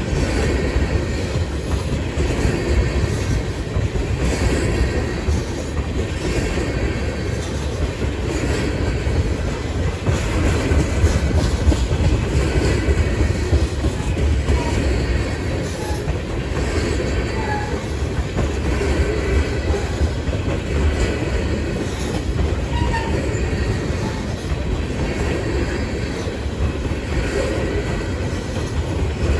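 Freight train of tank cars rolling steadily past: continuous rumble and clatter of steel wheels on the rail, holding even throughout.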